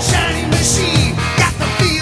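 Rock music soundtrack with a steady beat.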